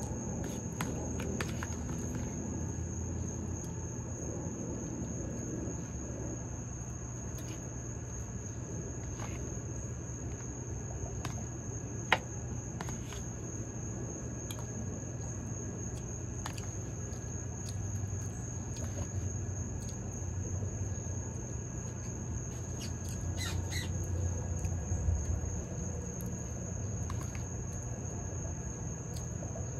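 Insects droning outdoors: one steady high-pitched tone held without a break, over a low rumble. A few faint clicks, and one sharp click about twelve seconds in.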